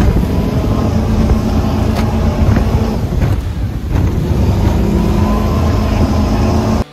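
Cigarette-style performance powerboat's engines running hard at high throttle, a loud steady drone that cuts off suddenly near the end.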